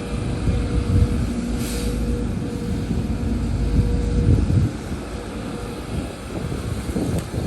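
Heavy diesel earthmoving machinery running under load with a deep rumble, easing off suddenly a little over halfway through. A short hiss comes about two seconds in.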